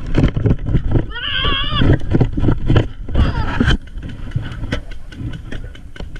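Someone running over grass: a rapid run of heavy thumps and rustling from footfalls and jostled gear. Two high, wavering yells come about a second in and again around three seconds.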